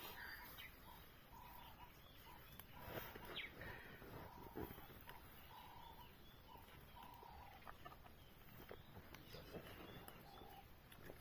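Quiet ambience with a bird calling faintly: a short note of steady pitch repeated about once a second, plus a few faint clicks.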